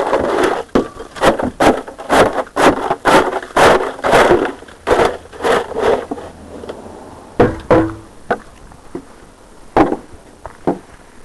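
Snow shovel chopping and scraping at packed snow and ice in a quick run of sharp strokes, about two a second. About six seconds in the strokes thin out to a few scattered ones.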